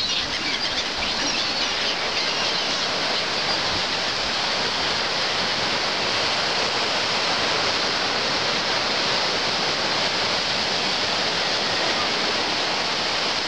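Black Sea waves breaking along the shore: a steady, even rush of surf.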